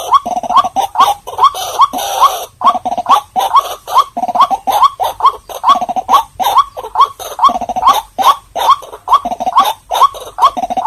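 White-breasted waterhen calling: a fast, unbroken run of short rising croaks, about three a second.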